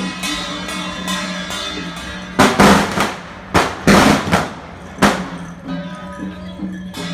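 Firecrackers going off in several loud bursts from about two and a half to five seconds in, over procession music with a steady beat and sustained tones.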